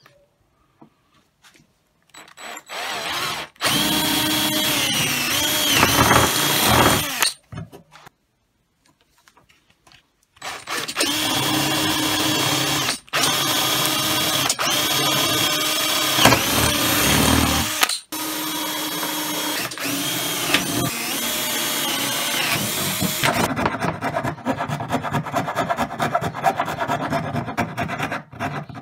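Electric drill with a twist bit boring dowel holes through the tenon of a wooden tabletop: a short run, a pause, then a long run with brief stops, the motor's whine dipping as the bit loads up in the wood. Near the end the drill stops and rapid rough scraping follows as the hole is worked by hand.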